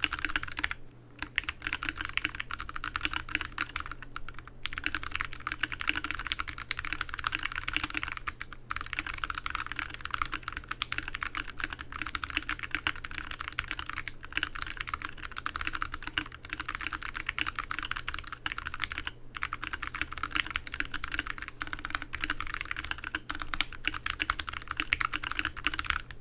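Steady, fast typing on a TADA68 mechanical keyboard with lubed Outemu Ergo Clear switches, foam-dampened inside a wooden case, broken by a few brief pauses.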